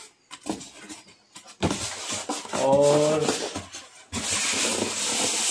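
Polystyrene packing insert rubbing and scraping against the inside of a cardboard carton as hands work it loose and pull it out. The loudest scraping hiss comes in the last second and a half.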